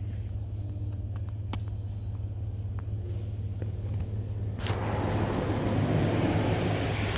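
Rinse spray from a RYKO UltraSonic touchless car wash hitting the truck, heard from inside the cab. The hiss of water starts suddenly about four and a half seconds in and builds, over a steady low hum, with a few scattered drips before it.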